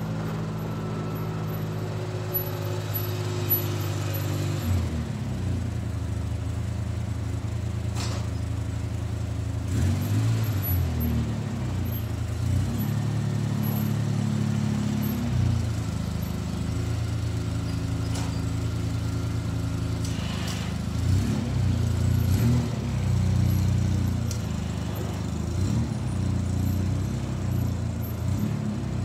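Polaris Sportsman 600 ATV engine running while plowing snow, its pitch stepping up and down several times as the throttle changes. A single sharp knock about eight seconds in.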